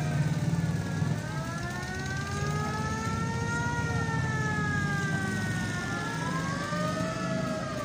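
A siren wailing in a slow rise and fall, one long sweep up and down followed by a second rise near the end, over the low rumble of passing vehicle engines.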